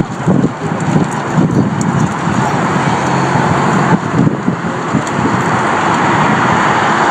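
Road traffic: cars driving past, a steady rush of engine and tyre noise.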